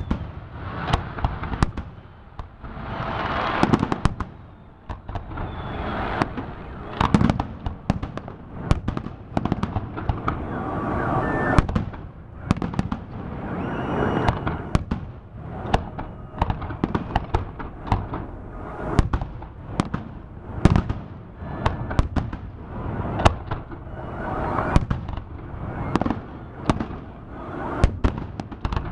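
Festive fireworks display: shells bursting overhead in a fast, irregular string of sharp bangs, several a second at times, with no break.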